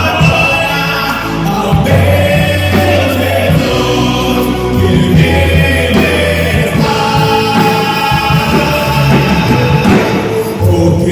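Live gospel band playing with singing, over long held bass notes.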